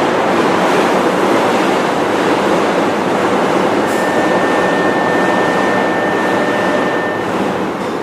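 Steady rush of noise inside a Sotetsu 11000 series train car standing at a station. About halfway through, a thin high steady tone sounds for about three seconds.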